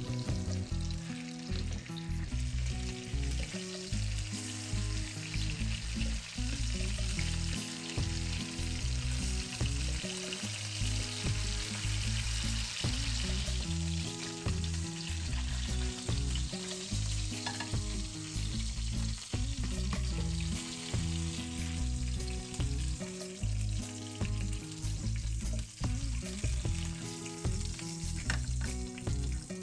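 Chicken thighs frying in oil and butter over high heat, a steady sizzle, with a wooden spatula turning them in the pan.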